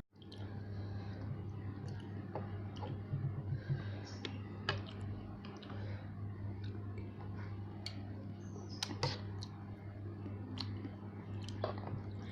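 Close-up eating sounds from someone eating noodles: chewing and scattered sharp mouth and utensil clicks over a steady low hum.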